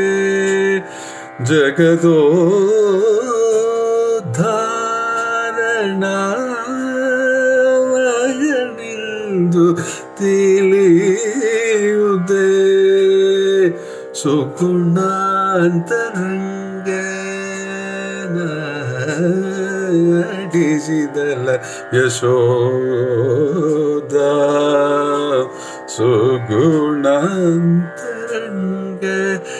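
A man singing solo in raga Kappi (Peelu) in Carnatic style, his voice gliding and ornamenting between held notes over a steady drone.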